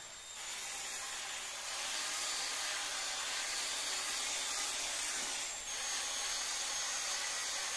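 Parkside PAAP 12 C3 cordless polisher running at low speed, its foam pad spreading leather renewal liquid over a fake-leather chair back: a steady whirring hiss. The sound dips briefly about five and a half seconds in, and a faint high whine carries on after it.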